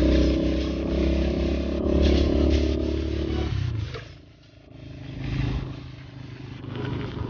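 Vehicle engine running steadily under a hiss of tyres on a rain-wet road. About three and a half seconds in the engine note cuts off and the sound dips briefly, then a lower engine note comes back.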